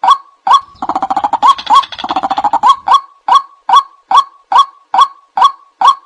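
White-breasted waterhen giving its repeated 'wak' call, a short note about two and a half times a second. For about the first two seconds a faster, denser run of overlapping calls joins in.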